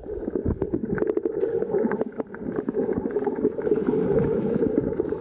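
Muffled underwater noise picked up by a camera in the water: a steady rumbling rush with many small clicks and crackles running through it.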